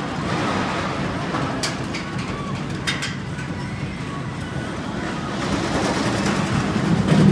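Steel roller coaster train running on its track, a steady rumble that grows louder near the end as the train comes down close by. Two sharp clacks come about a second and a half and three seconds in.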